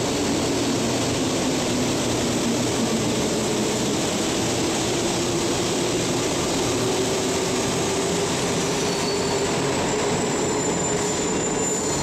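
Santiago Metro Line 1 rubber-tyred train pulling into the station and slowing to a stop alongside the platform. A steady rush of running gear, with a drawn-out tone that rises slowly through the second half.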